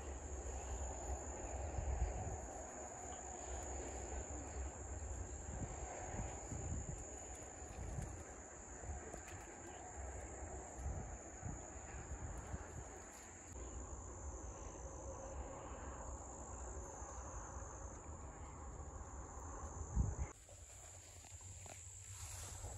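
Crickets chirping steadily in a high-pitched chorus over a low rumbling background with scattered knocks. A sharp thump comes about twenty seconds in, after which the low rumble drops away and the insect chorus continues alone.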